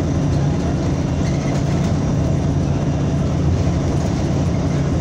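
Inside a NABI 45C-LFW transit bus as it runs: a steady low engine drone with road and cabin noise over it.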